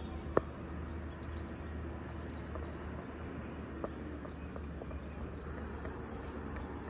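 Steady outdoor background with a low hum, a few faint short chirps, and one sharp click about half a second in.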